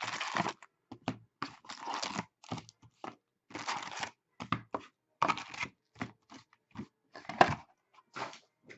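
Sealed Upper Deck hockey card box being torn open by hand: its plastic wrap and cardboard tearing and crinkling in a string of short, irregular rasps.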